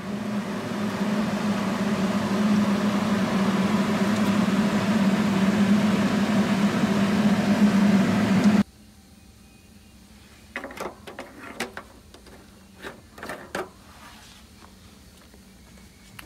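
Plasma-torch water cooler running with a steady, loud hum of its pump and fan. The hum cuts off suddenly about nine seconds in, and a few light knocks and clicks of handling follow.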